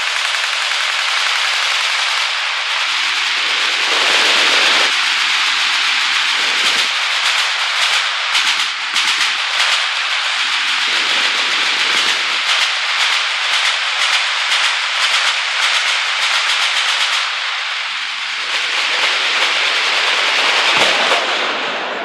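Several machine guns firing at once, a dense, unbroken rattle of overlapping automatic fire that thickens into rapid cracks in the middle stretch.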